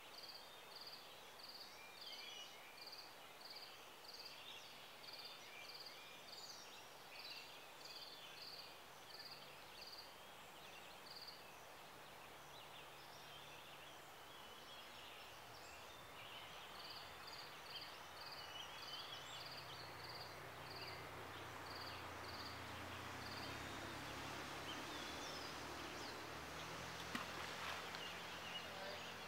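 Faint outdoor ambience: a high-pitched call repeating about twice a second, pausing for several seconds midway, over scattered small-bird song. In the last third, a low steady hum builds beneath it.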